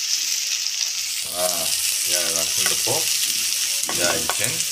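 Sliced onions and green chillies sizzling steadily as they fry in hot oil in a kadai, stirred with a wooden spoon; the sizzle brightens about a second in.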